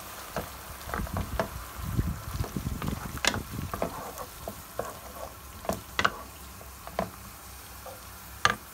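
Wooden spatula stirring a creamy mushroom sauce in a nonstick frying pan over a low steady sizzle, with irregular knocks and scrapes against the pan. The knocks come thick in the first few seconds, then sparser, with the sharpest one near the end.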